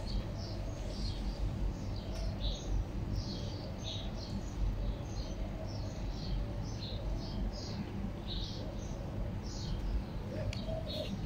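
Small birds chirping: many short, high, irregular chirps, several a second, over a low steady rumble.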